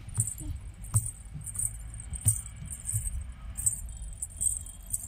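Small bells on a toddler's silver anklets jingling in short bursts, about two a second, as she steps and scrambles on a plastic slide, with a couple of sharp knocks.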